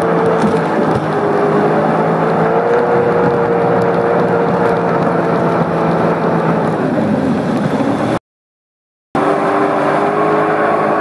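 Sea-Doo personal watercraft engine running at a steady cruising speed, its pitch wavering slightly, with a rushing noise beneath. About three-quarters of the way through, the sound cuts out completely for about a second, then returns at a slightly different pitch.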